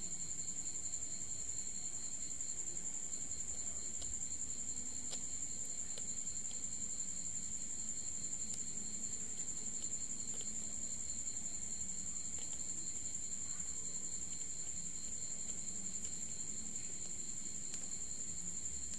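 Insects trilling steadily, a continuous high-pitched chirring with a softer pulsing note beneath it.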